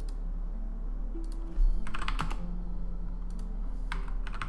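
Typing on a computer keyboard: a few quick runs of keystrokes, with a single low thump about one and a half seconds in.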